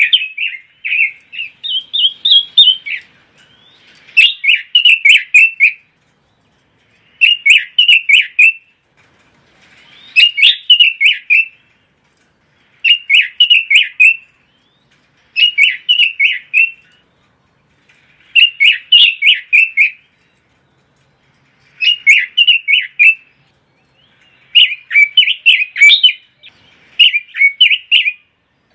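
Pekin robin (red-billed leiothrix) singing: rapid, warbling song phrases of about a second and a half each, repeated about ten times with short pauses between them.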